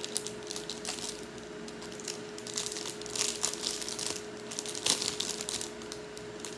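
Plastic food wrapper crinkling and rustling in irregular bursts as it is handled and opened, over the steady hum of a kitchen range hood fan.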